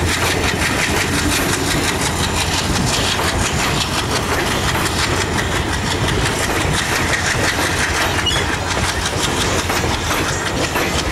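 Passenger train hauled by a WDM-3A diesel locomotive rolling past slowly as it pulls away: a steady rumble with rapid wheel clatter on the rails and the diesel engine running underneath.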